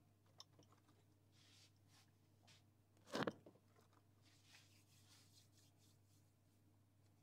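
Near silence: room tone with a steady low hum, faint scattered ticks, and one brief thump about three seconds in.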